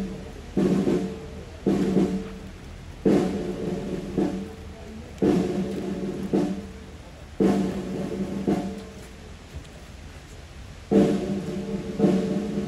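Military band playing slow ceremonial music: sustained brass chords, each struck with a drum beat and fading over a second or so, at uneven intervals.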